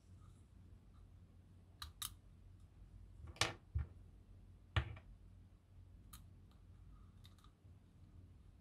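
Scattered light clicks and taps of small black plastic eyepiece parts and tiny screws being handled during assembly, with two louder clicks near the middle.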